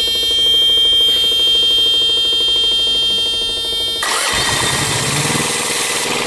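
Thermo King TriPak auxiliary power unit's diesel engine being cranked by its starter while the start warning buzzer sounds steadily. About four seconds in, the buzzer stops and the engine catches and settles into running.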